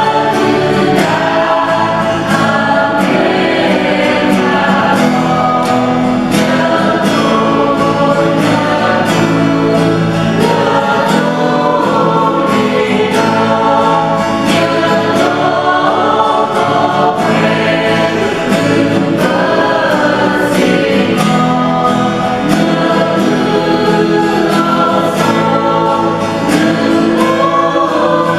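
Choir singing a sacred piece with instrumental accompaniment, voices holding long, gliding notes.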